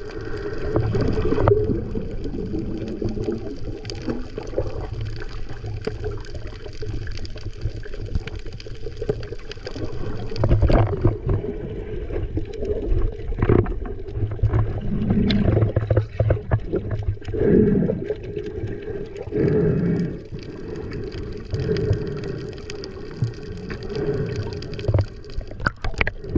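Muffled water sloshing and gurgling heard from a camera during snorkeling, with irregular louder surges and a few knocks.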